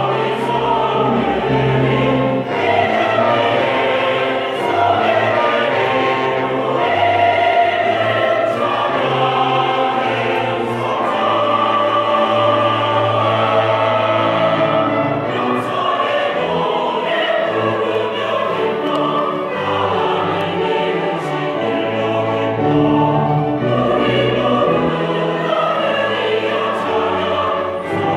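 Mixed church choir singing a Korean hymn in parts, continuous and full throughout.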